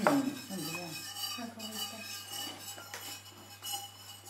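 Small glass and ceramic serving bowls being handled and set down: a sharp clink right at the start, then a few lighter knocks.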